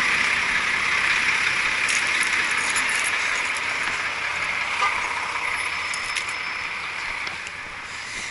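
Steady rushing noise of running mechanical-room equipment, slowly fading, with a few light metallic clinks.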